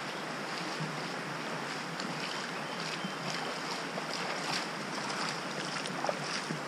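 Shallow creek water rushing steadily over rocks at a crossing, with light splashes of wading steps in the second half.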